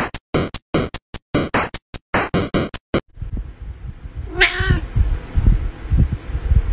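Choppy, rhythmic music in short even bursts, stopping suddenly about three seconds in. Then a domestic cat meows once, a short call rising and falling in pitch, over low thumping and rumble, and starts another meow right at the end.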